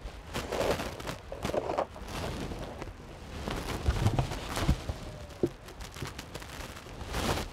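Handling noises as a polystyrene beehive is closed up: irregular knocks, bumps and rustles as the insulated cover and the roof are set back on, with a brief squeak about five and a half seconds in.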